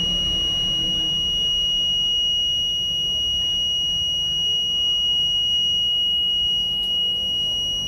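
Small buzzer in a homemade fire alarm sounding a loud, continuous high-pitched tone. It is on because the tube-light starter's element, heated by a flame, has closed and switched the buzzer on.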